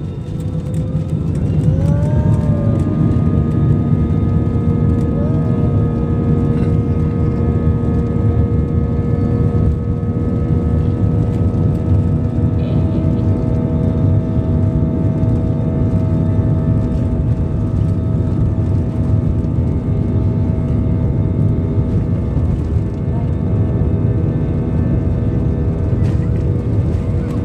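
Jet airliner's turbofan engines spooling up to takeoff thrust, heard from inside the cabin: a rising whine levels off about two seconds in, then holds steady over a heavy rumble during the takeoff roll.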